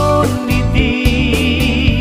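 Music of a Dusun-language Christian song: a steady beat and bass under a pitched melody, with a high wavering melody line coming in about a third of the way through.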